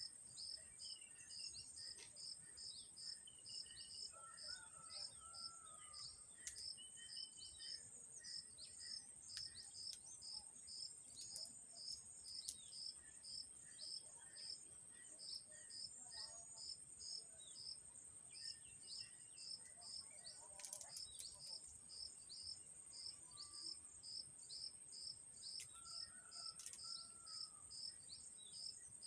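Faint outdoor insect chorus: a continuous high drone with regular chirps at about two a second. Occasional short bird calls and chirps come and go over it.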